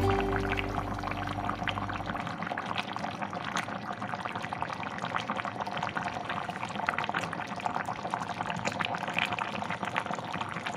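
Pot of miso soup bubbling on the stove: a dense, steady crackle of many small pops from the simmering broth.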